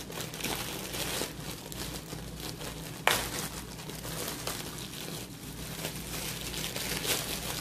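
Thin plastic produce bag crinkling and rustling as a head of lettuce is handled and pulled out of it, with one sharp click about three seconds in.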